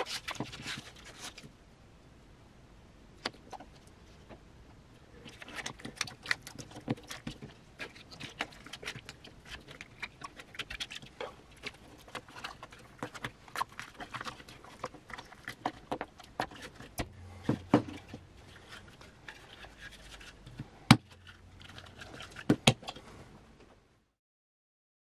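Sandpaper being handled and fitted onto a 3D-printed PLA sanding block: irregular crinkling, rustling and small plastic clicks and taps, with a few sharper knocks near the end.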